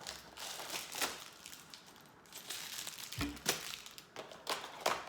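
Packaging crinkling and tearing in irregular bursts as a LEGO advent calendar door is opened and its contents unwrapped, with a few sharp clicks.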